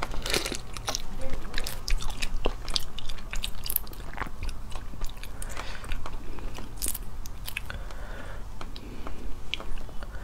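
Crayfish being eaten: shells bitten and cracked open, peeled apart by hand and chewed, making many short sharp crunches and clicks with wet chewing in between.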